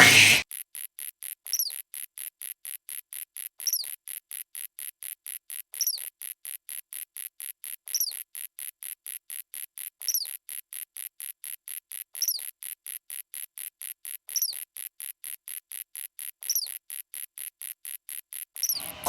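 Crickets chirping in an even, rapid pulse, about five pulses a second, with a short falling chirp about every two seconds, repeating like a looped sound effect. A brief louder burst comes at the very start and again at the very end.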